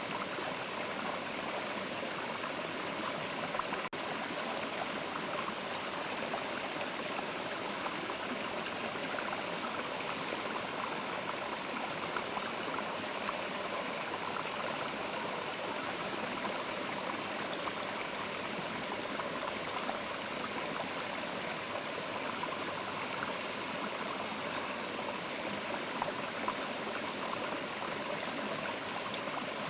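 Mountain river flowing steadily, a continuous rushing of water with no breaks.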